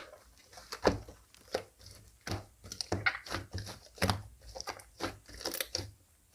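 A series of short, irregular crinkling or crunching noises, about a dozen in all, with brief gaps between them.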